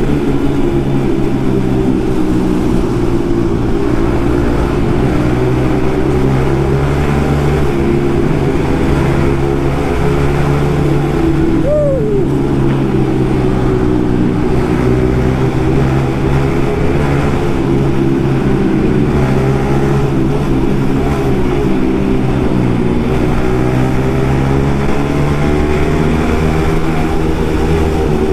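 Yamaha MT-15 motorcycles riding together: the exhaust of the 155 cc single-cylinder engine running loud through an Akrapovic carbon silencer with the dB killer removed, held at a fairly steady engine speed while cruising.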